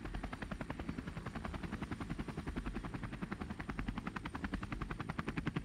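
Helicopter main rotor running, a steady rapid chop of blade slaps many times a second.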